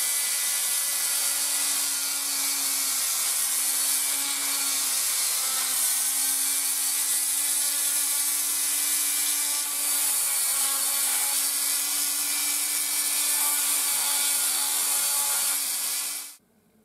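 Small pen-style electric rotary tool running steadily, its bit drilling a small hole into a plastic block; the motor whine and the bit's high grinding hiss stay even, then cut off suddenly near the end.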